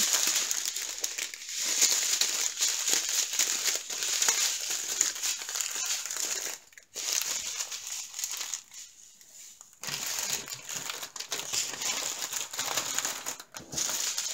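Plastic packaging crinkling and rustling as small bags of diamond-painting drills and the canvas's plastic cover are handled. The rustling breaks off briefly about seven seconds in and is quieter just before ten seconds.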